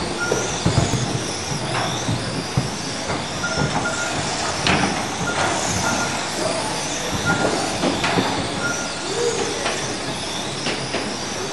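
Several 1/12-scale electric RC pan cars racing on a carpet track, their motors making a high whine that rises and falls with throttle. Occasional knocks are heard, and short high beeps recur every few seconds.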